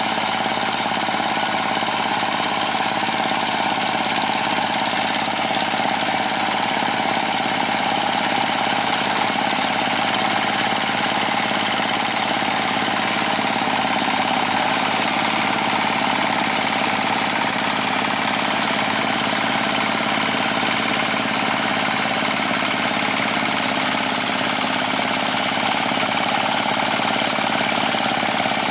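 Chinese D30 diesel engine running steadily under load, driving the cutter of a water-channel trenching machine as it cuts a ditch through wet rice-field mud.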